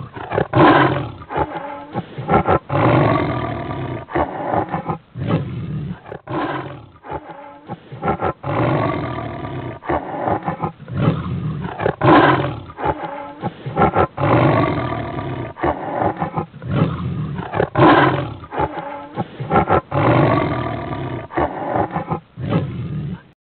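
A big cat roaring and growling over and over, in a long series of loud, rough calls that stops suddenly near the end.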